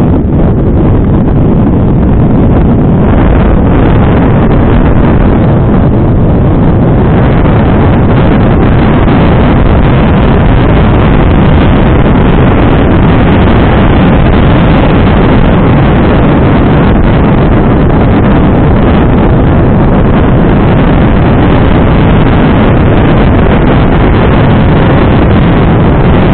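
Loud, steady wind buffeting on a bike-mounted action camera's microphone as a mountain bike rides down a dirt trail, mixed with the rumble of the tyres and the bike over the rough ground.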